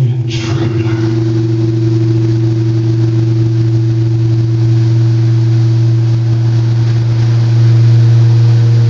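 Electric guitar through a distorted amplifier, held as a loud, steady low drone with a noisy fizz above it, swelling a little louder near the end.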